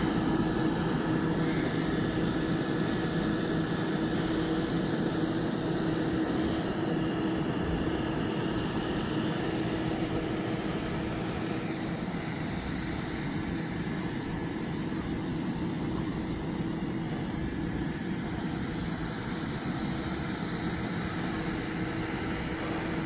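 RV rooftop air conditioner running: a steady fan rush with a constant low hum.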